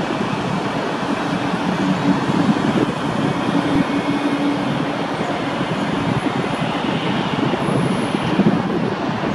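Airbus A321 jet engines running at low taxi thrust as the airliner rolls along the taxiway: a steady rumble with a low hum.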